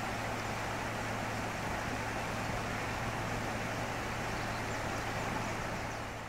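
Steady rushing of a flooded creek over its banks, with a steady low hum underneath; it all fades out at the very end.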